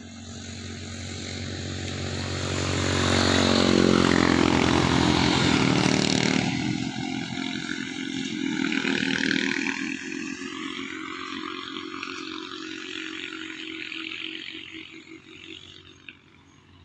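A motor vehicle driving past on the highway: its engine and tyre noise grow louder, are loudest about four to six seconds in, then fade away as it moves off.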